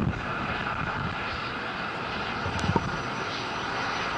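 Steady roar of the H-IIA rocket climbing on its main engine and strap-on solid rocket boosters, an even rumbling hiss, with one brief click about two and a half seconds in.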